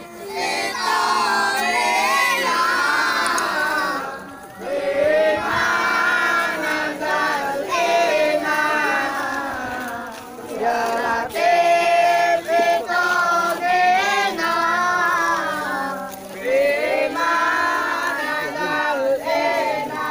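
A group of boys singing together in phrases a few seconds long, with short breaks between phrases.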